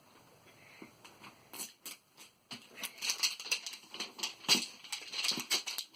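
Plastic wrapping on a toy package crinkling and crackling as it is handled and pulled open, in quick irregular rustles that grow busier and louder about halfway through.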